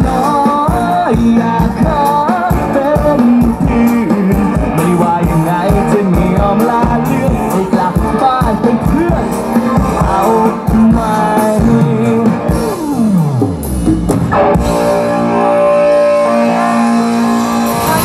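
Male pop singer with a live band of drums, guitar and keyboard, playing through the stage sound system. About two-thirds of the way through, the drums stop and a long falling slide leads into held, steady keyboard chords, with the voice coming back in near the end.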